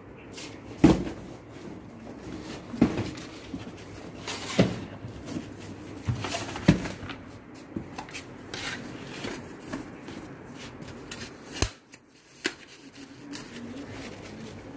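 A perforated metal skimmer scooping boiled rice in a large aluminium pot, with scraping and a few sharp, irregularly spaced knocks against the pot, along with the handling of foam takeaway boxes.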